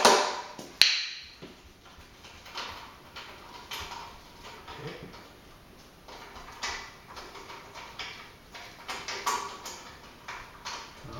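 Metal clanks and clicks of hand tools and parts being handled on a motorcycle's front wheel: one sharp, ringing metal clank about a second in, then scattered lighter knocks and clicks.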